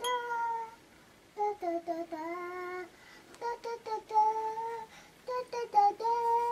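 Toddler girl singing to herself in a high voice, in short phrases with held notes and brief pauses between them, the last note held longer near the end.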